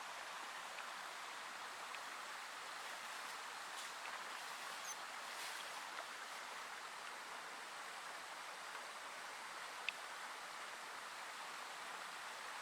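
Steady rush of a nearby river, even and unbroken, with one faint click about ten seconds in.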